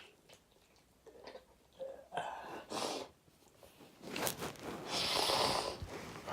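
A person sneezing: noisy, gasping in-breaths about two seconds in, then a sudden hissing sneeze blast about four seconds in that trails off over a second or so.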